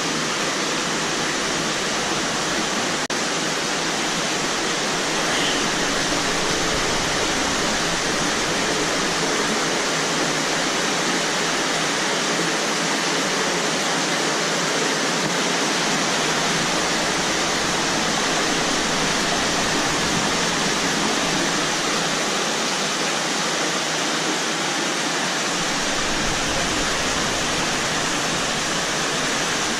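Steady rush of a fast-flowing underground river in a cave, water pouring over rock without a break.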